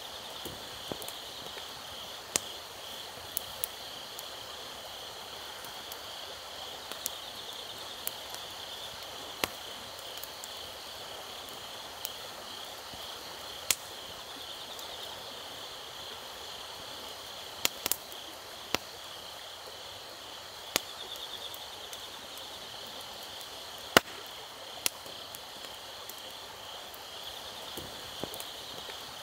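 Wood fire crackling in a metal fire grate, with sharp pops every second or two, the loudest about 24 seconds in. Under it, insects chirp steadily and high.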